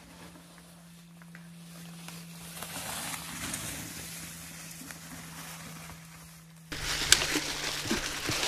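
A mountain bike rolling past over dry leaf litter, its tyres crackling through the leaves, growing louder to a peak about three seconds in and then fading. About seven seconds in, a louder rush of riding noise cuts in suddenly.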